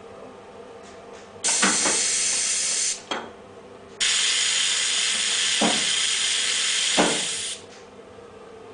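Two bursts of loud, steady hiss that start and stop abruptly. The first, about a second and a half in, lasts about a second and a half; the second, from about four seconds in, lasts about three and a half seconds.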